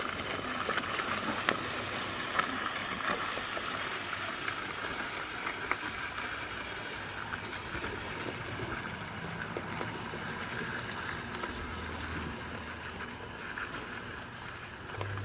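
G-scale model electric railcar running on garden track: a steady running noise with a few sharp clicks of the wheels, fading slowly as it moves away.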